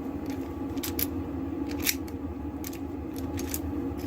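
Key cutting machine running with a steady motor hum, with irregular sharp metallic scrapes and clicks about once or twice a second.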